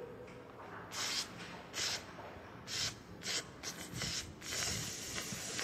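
A series of short hissing noises, about seven of them at uneven intervals, the last one lasting about a second.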